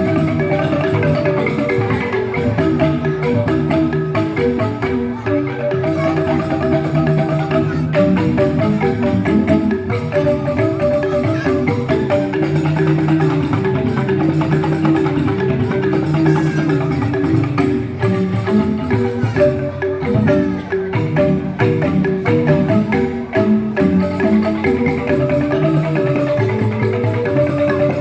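Joged bumbung bamboo gamelan playing: bamboo xylophones (grantang) striking dense, fast, interlocking notes without a break.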